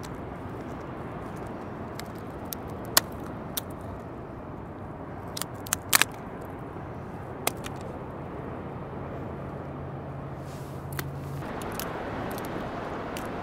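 A blue crab's shell cracking in short, sharp snaps, loudest about six seconds in, as it is broken apart by hand for bait. Steady wind and surf noise underneath.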